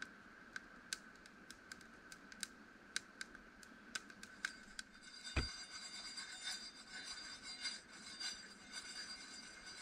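Coffee beans roasting in a steel frying pan over a wood fire: scattered sharp crackles, about two a second, then a knock about halfway through and a denser rattle and scrape of the beans being tossed and stirred in the pan.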